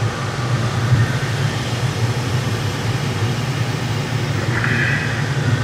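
Air rushing over the canopy inside the cockpit of a Pilatus B4 glider as it spins, a steady low rumble under a hiss, with a short higher rush near the end.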